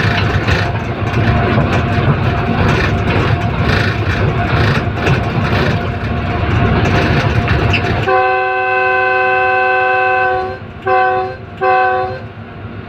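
GEU-40 diesel-electric locomotive running at speed, a dense rumble of engine and wheels on rail with frequent rail clicks. About eight seconds in, its chord horn sounds several notes at once: one long blast of about two and a half seconds, then two short blasts.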